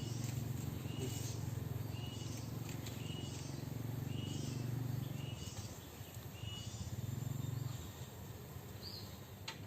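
An animal's short high call, repeated about once a second over a low steady hum; the calls stop after about six seconds, the hum fades near eight seconds in, and a single sharp click comes near the end.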